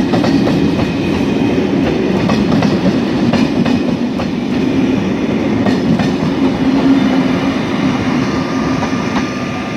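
SNCF Corail passenger coaches rolling past, with a steady rumble and an irregular clickety-clack as the wheels cross rail joints.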